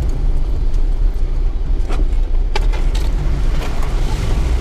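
Cabin sound of a Mitsubishi Triton ute crawling over a rough, rutted track: a steady low engine and drivetrain rumble, with several sharp knocks and rattles as the truck jolts over bumps.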